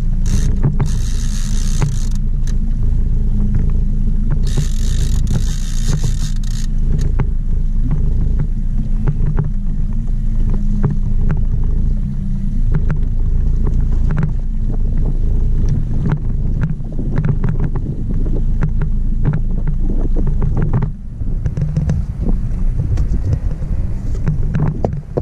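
Mercury outboard motor running steadily as the boat trolls, a constant low rumble mixed with wind on the microphone. Two short bursts of high hiss come in the first seven seconds, and light clicks and knocks come later.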